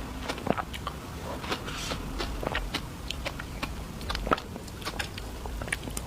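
Close-miked ASMR eating sounds of a person biting and chewing dessert: many small, sharp, crisp clicks and wet mouth sounds in an irregular stream.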